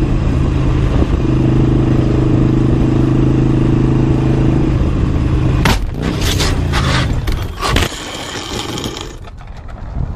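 Motorcycle engine running steadily at highway speed, then a crash about six seconds in: a burst of hard impacts and scraping as the bike goes down and slides on the pavement, while the engine note drops away. It grows quieter near the end.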